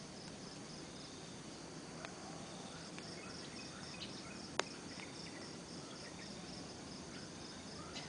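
Crickets chirping in a steady, evenly pulsed high trill, with a few faint short chirps below it and a single sharp click about four and a half seconds in.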